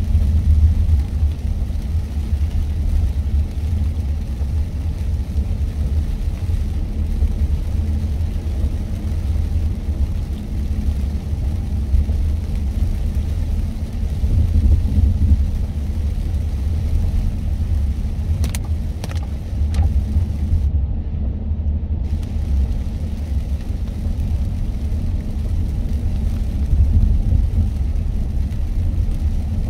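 Steady low rumble of a car driving on an expressway in the rain, engine and tyres on the wet road. A few faint clicks come about two-thirds of the way through.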